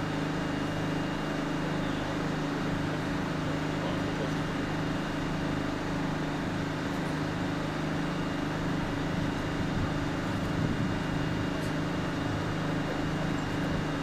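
Steady mechanical drone from the stationary E331-series train, whose cars carry portable air compressors: an even low hum with a faint steady high whine above it.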